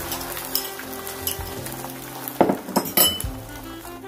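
Beaten eggs sizzling as they are poured into a preheated cast iron skillet, with a few sharp clinks of a spoon against the bowl and pan about two and a half to three seconds in. Soft background music with held notes plays underneath.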